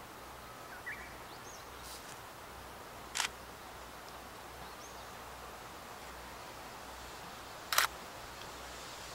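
Two camera shutter clicks, the first about three seconds in and the second, a quick double click, near the end, over a faint steady outdoor background with a few brief bird chirps.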